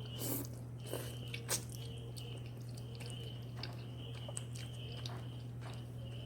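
A person eating Korean spicy instant noodles: a few short, sharp mouth sounds of biting and slurping in the first couple of seconds, then quieter chewing, over a steady low hum.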